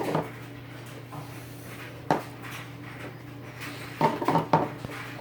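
Hard objects being handled and knocked together: a sharp knock about two seconds in and a quick cluster of three or four knocks about four seconds in, over a faint steady hum.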